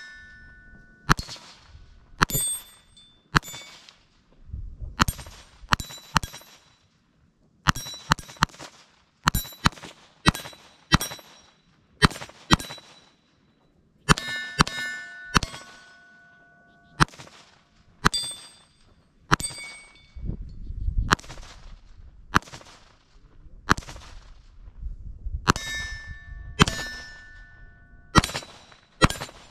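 Kel-Tec CP33 .22 LR pistol fired in a long string of about thirty single shots, mostly half a second to a second apart, with a pause of several seconds after about two-thirds of the string. Many of the shots are followed by the clear ringing ping of a steel target being hit.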